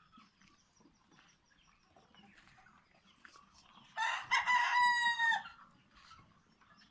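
A flock of young layer chickens, faint and scattered, then one loud, drawn-out chicken call about four seconds in, lasting about a second and a half and dropping in pitch as it ends.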